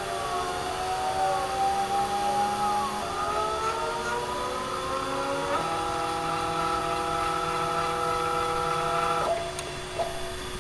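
Stepper motors of a hobby CNC router whining as the gantry moves, several tones gliding up and down as the axes speed up and slow down. They then hold a few steady pitches for several seconds during a constant-speed move and stop about a second before the end.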